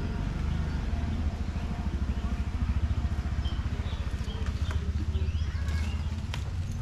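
A motor running steadily with a low, evenly pulsing rumble, with a few faint high chirps over it.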